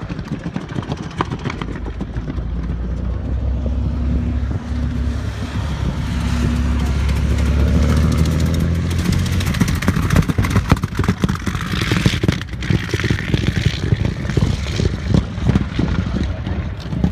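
Vintage aero-engined race cars driving past. A deep, steady engine note builds to its loudest about eight seconds in, then gives way to a rougher, irregular crackling as a second car passes.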